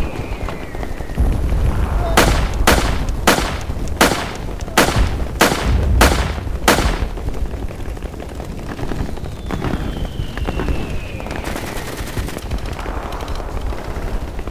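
Eight gunshots in a steady run, about one every two-thirds of a second, over a constant low rumble. Later, a high whistle falls slowly in pitch, like the whistle of an incoming shell.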